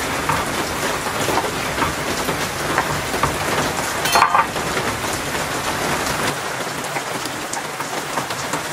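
Steady rain falling, with faint light taps of a knife cutting tortillas on a wooden board.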